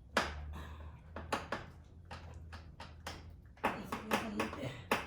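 Irregular sharp metallic clicks and knocks, about eight or nine over a few seconds, as a hand tool tightens the bolts of a tow mirror bracket on a truck door.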